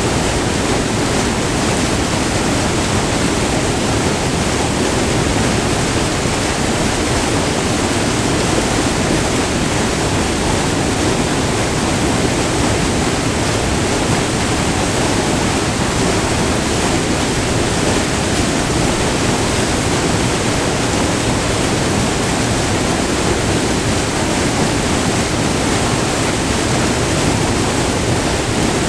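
Waterfall: white water pouring over a short multi-tiered falls on a river, heard up close as a steady, unbroken rush.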